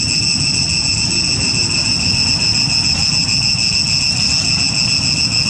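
Steady, high-pitched insect chorus, an unbroken shrill drone, over a low rumble.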